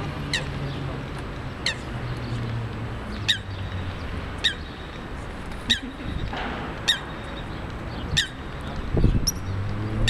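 Eurasian coot giving a short, sharp, high call about eight times, roughly once every second, over a low steady hum. A low thump about nine seconds in is the loudest sound.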